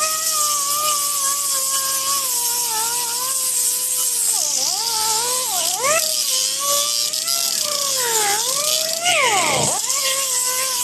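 Hand-held power grinder working rust off a car's steel body, a high motor whine over a steady grinding hiss, its pitch dipping and recovering several times.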